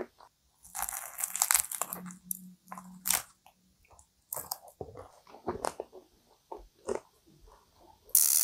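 Bites into a flaky, caramelised kouign-amann pastry filled with cream, with a long crisp crunch about a second in and another sharp crunch about three seconds in, then soft chewing in short clicks. A brief loud burst of noise cuts in right at the end.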